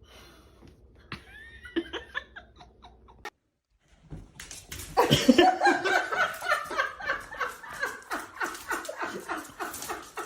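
A brief silence at a cut, then a person laughing hard in rapid, repeated bursts through the second half. Before the cut come a few faint, short high-pitched squeaks.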